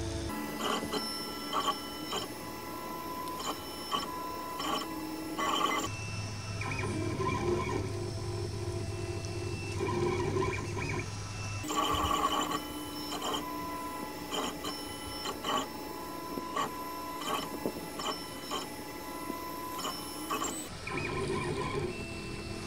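ReliaBuild3d RB3 FDM 3D printer printing its first layer: the stepper motors sing in steady tones that change pitch every several seconds as the print head changes moves, with frequent short ticks.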